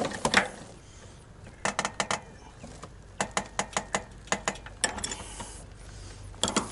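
Two adjustable steel wrenches working the brass coupling of a refrigerant line set as it is tightened: short runs of sharp metallic clicks, about four a second, in several groups from about one and a half seconds in.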